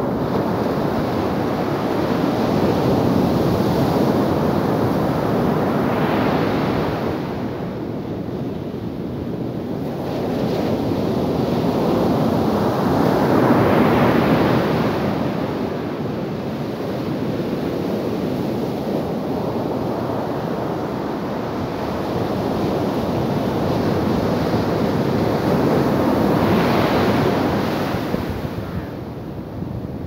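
Ocean surf breaking on a sandy beach: a continuous rushing wash of water that swells louder as each wave breaks and eases as it runs up the sand, several times over.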